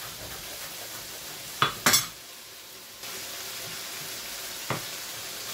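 Chicken karahi sizzling in a wok, a steady hiss, with sharp knocks of a knife on a wooden chopping board as coriander is cut: two close together about two seconds in and one more near the end.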